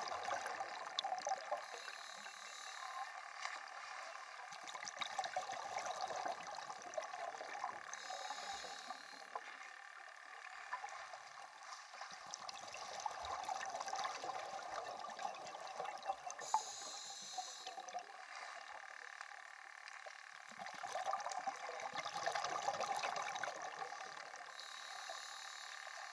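Muffled underwater ambience heard through a submerged camera: a steady crackling hiss of water and bubbles that swells and fades, with a few short, brighter hisses.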